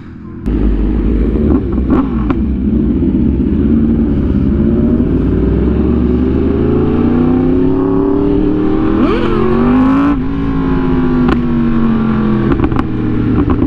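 Superbike engine under way, its pitch climbing steadily for several seconds as it accelerates, then dropping back about ten seconds in as it slows. A heavy wind rumble on the microphone runs underneath.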